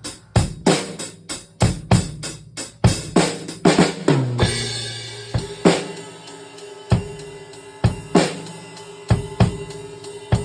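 Acoustic drum kit played: kick, snare and cymbals in a quick run of hits, a cymbal crash about four and a half seconds in, then slower, sparser strokes.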